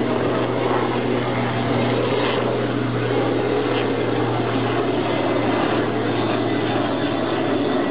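Rooivalk attack helicopter in flight: steady rotor and turbine noise over a constant low hum.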